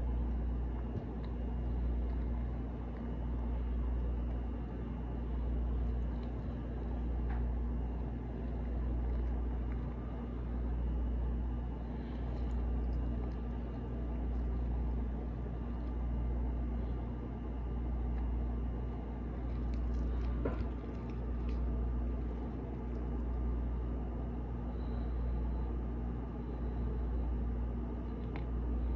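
A steady low mechanical rumbling hum that swells and fades about every two seconds, with a few faint clicks about two-thirds of the way through.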